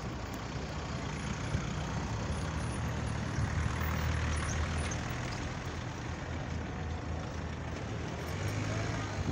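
Road traffic: a vehicle engine running close by over steady street noise. The engine hum grows a little louder in the middle.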